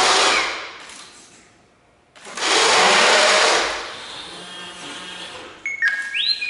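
Full-size R2-D2 replica's 2-3-2 mechanism: its motors whir in two bursts of a second or two each as the centre leg lowers and the body tilts from two-leg to three-leg stance. Near the end the droid's speaker plays R2-D2 beeps and rising and falling electronic whistles.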